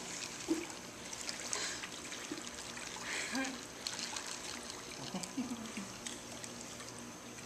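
Swimming-pool water trickling and lapping around people moving in it, with faint voices in the background.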